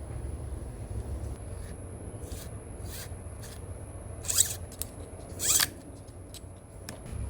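Two short rasping cuts or scrapes about a second apart, with a few light clicks, over a low steady hum.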